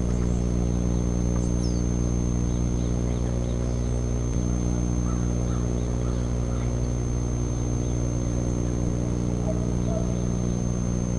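A steady low hum made of several even tones, with a constant thin high whine above it; nothing in it rises, falls or stops.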